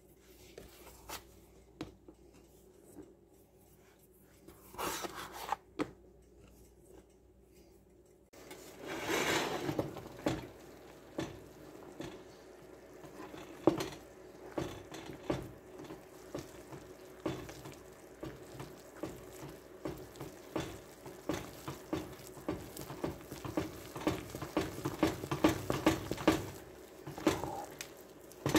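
Wooden spoon stirring and beating flour into hot broth and butter in a metal pot, knocking and scraping the pot many times in quick succession as the thick choux dough forms. Before that, a quiet stretch with a few light taps.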